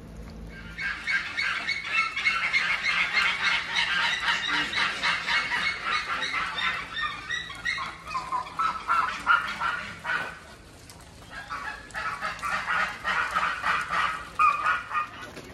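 A flock of birds calling, many short cries in quick succession, dropping away for about a second around two-thirds of the way through, then starting up again.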